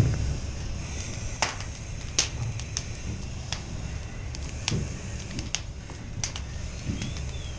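Wooden pallets burning: a steady low rumble of fire with irregular sharp crackles and pops from the burning wood.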